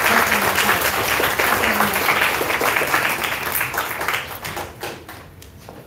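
Audience applause, a dense patter of many hands clapping that dies away about a second before the end.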